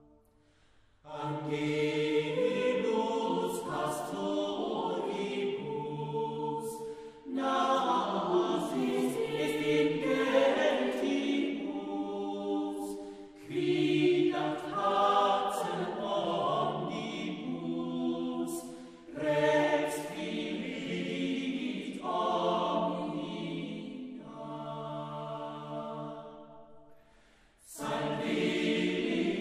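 A choir singing a slow chant in long sustained phrases, each lasting several seconds and separated by a short pause.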